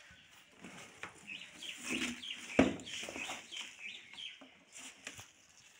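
Shredded paper packing and a cardboard box rustling and crackling as they are handled, with one loud thump about two and a half seconds in.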